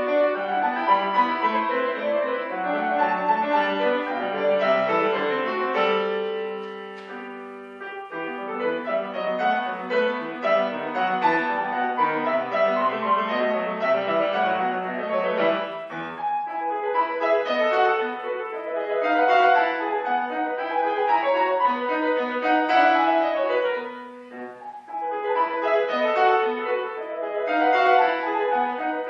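Solo classical piece played on a Steinway & Sons grand piano, with full chords and running notes. Twice the playing thins out and the notes ring away, about seven seconds in and again about five seconds before the end.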